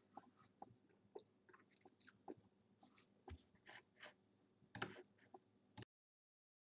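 Faint scattered clicks and small rustling ticks close to the microphone, irregular and brief; about six seconds in the sound cuts out to dead silence.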